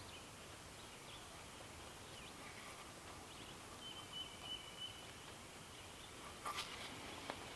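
Faint outdoor background with scattered small bird chirps, a thin held whistle for about a second just past the middle, and two soft clicks near the end.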